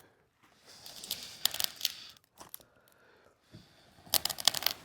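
Freshly lit charcoal fire, started with cooking oil, crackling and popping and throwing sparks: scattered sharp snaps over a soft hiss, with a dense flurry of pops near the end.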